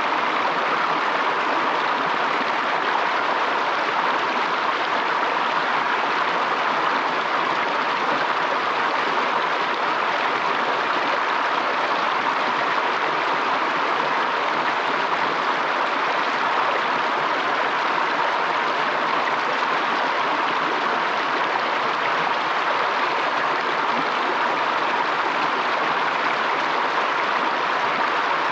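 Fast-flowing stream rushing and splashing with a steady, even noise.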